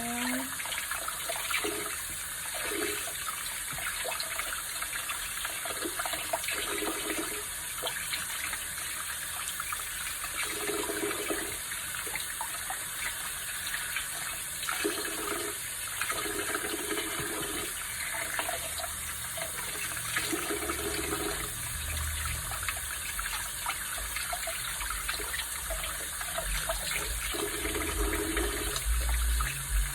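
Tap water running steadily into a sink, with intermittent splashing and handling as mackerel are washed under it.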